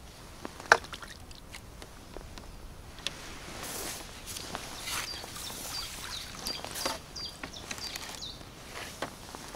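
A hooked fish splashing and thrashing at the water's surface as it is played in to the bank, with a sharp click about a second in. A small bird calls over the splashing with short, high notes repeated about twice a second.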